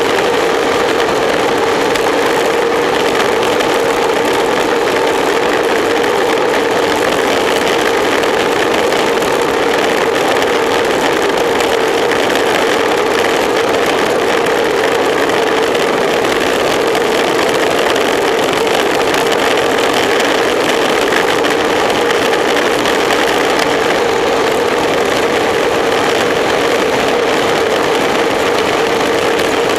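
Steady rush of wind over the microphone of a camera riding along with a road bicycle at racing speed, with a constant droning tone running through it.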